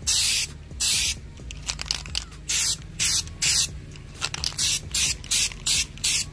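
Aerosol can of yellow fabric spray paint hissing in about ten short bursts, with a short pause after the first two, as paint is misted onto fabric.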